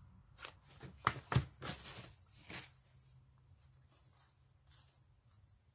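Scissors snipping through a pleated fabric ruffle: a handful of short, crisp cuts in the first two and a half seconds, the loudest pair a little after one second, then only faint handling of the fabric.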